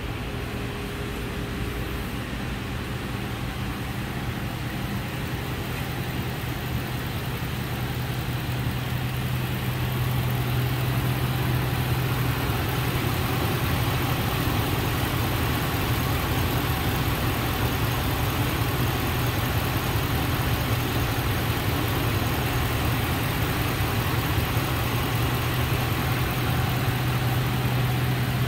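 A 2004 Dodge Ram 1500's 5.7L Hemi V8 idling steadily, getting somewhat louder about a third of the way in.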